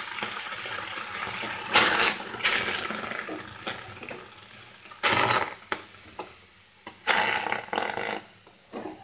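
Wet Bombay duck fish pieces dropped one by one into a very hot, dry kadai, hissing sharply as each piece lands; about four loud hisses that fade within a second. The hiss is the water in the fish flashing off on the hot metal, which is why the pan is used without oil.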